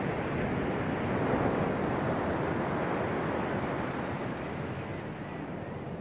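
Small waves breaking and washing up on the beach: a steady surf hiss that swells about a second in and eases off slightly toward the end.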